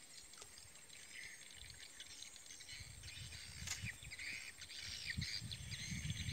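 Open-air pondside ambience: small birds chirping in many short, scattered calls over a steady high-pitched insect drone. Low rumbling gusts come in during the second half, and there is a single sharp click a little past the middle.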